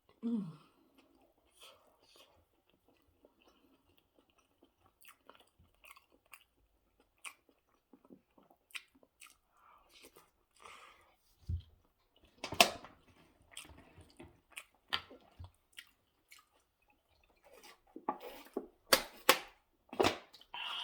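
Close-miked chewing and wet mouth sounds of someone eating, with scattered sharp clicks and smacks, the loudest clustered about halfway through and near the end.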